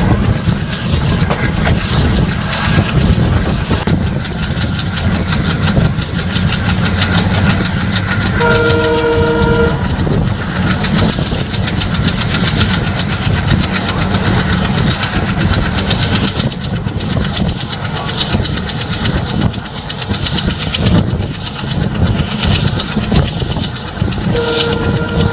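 WDM-3A ALCO diesel locomotive's 16-cylinder engine chugging under load as the train pulls away, a heavy low rumble throughout. The locomotive's horn sounds about a third of the way in for just over a second, and again near the end.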